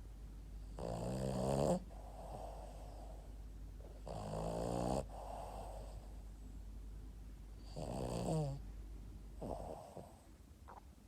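Boston terrier snoring in its sleep: four snores, each about a second long, roughly every three seconds, with softer breathing between them. The last snore is weaker.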